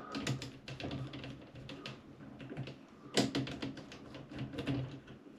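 A run of small irregular clicks and taps, with one sharper knock about three seconds in, from hands and a small tool working the suspension wires and ceiling fixing of a hanging metal-cased light fitting. A faint low hum runs underneath.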